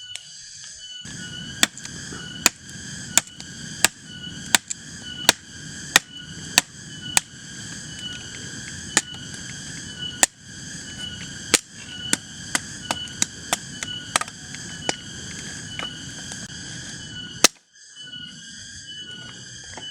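Wood being chopped: a run of sharp, separate strikes, roughly one or two a second, that stops suddenly near the end.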